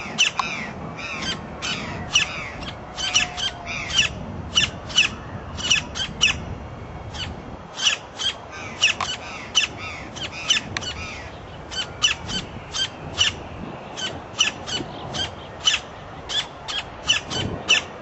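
Campo flickers calling: a long run of short, sharp, high-pitched notes, two to three a second, with a couple of brief pauses.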